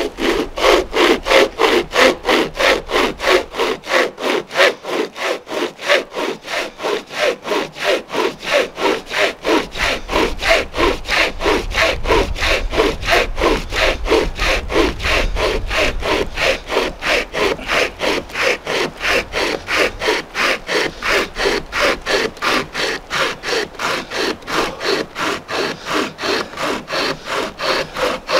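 Hand-pulled chain saw (a pocket chainsaw worked by its handles, no motor) cutting through a dry log in fast, even back-and-forth strokes, about three a second. The chain rasps through the wood without pause.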